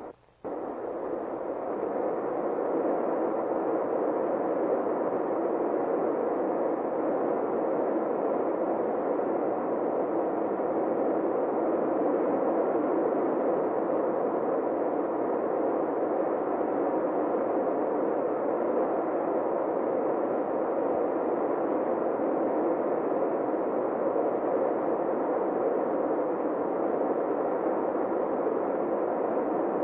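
Alcohol and liquid-oxygen rocket engine at full thrust in a static test firing: a steady, muffled rushing noise that starts abruptly about half a second in and holds without change.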